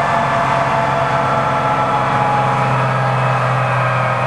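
Tree spade truck's engine running steadily, powering the hydraulics that drive the steel spade blades down into the ground around the tree.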